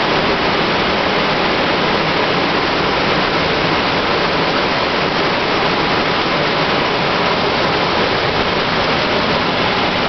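Heavy rain pouring down steadily, a dense even hiss of falling and splashing water.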